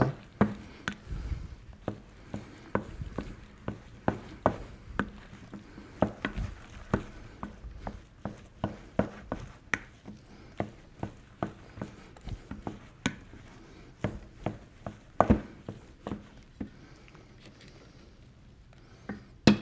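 Choux pastry dough being beaten by hand in a pot, the utensil knocking and slapping against it in a steady, slightly irregular run of about two to three strokes a second. The strokes thin out near the end.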